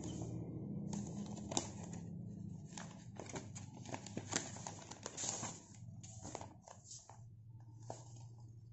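Paper envelope rustling and crinkling as it is handled and turned over in the hands, in irregular crackles with a few sharper snaps. A low steady hum runs underneath.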